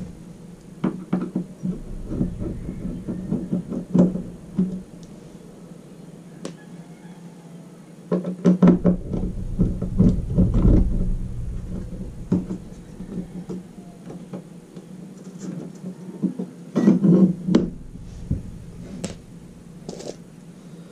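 Scattered clicks, knocks and rattles of an RV roof crank vent's arm and fittings being worked loose by hand from the crossbar, with a louder low rumble for a few seconds in the middle and a steady low hum underneath.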